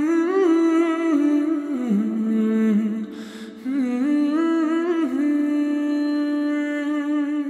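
A solo voice humming a slow Bhutanese melody in long held notes with small ornamental turns, breaking for a breath about three seconds in.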